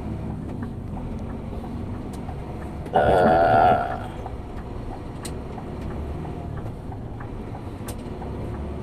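Scania P360 truck's diesel engine running while driving, with a loud grating buzz for about a second, three seconds in, as a gear is engaged: the abnormal gearbox noise on shifting that points to worn gears inside the transmission.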